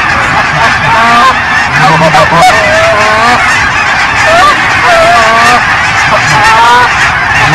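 A flock of geese honking: many loud, overlapping calls at once, each bending up and down in pitch.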